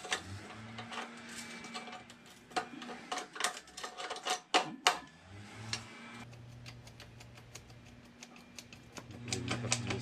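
Pliers clicking and clinking on the sheet metal of an oil burner's slotted flame-retention plate as its tabs are bent back: a run of irregular sharp clicks, thickest in the middle. A low steady hum comes in about six seconds in.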